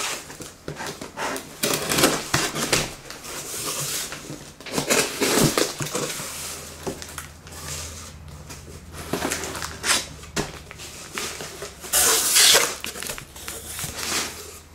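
A large cardboard shipping box being opened and handled: flaps pulled back and cardboard scraping and crinkling in irregular bursts, loudest about twelve seconds in.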